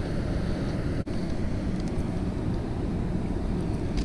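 Steady low rumble of wind buffeting the microphone outdoors, with a brief dropout about a second in.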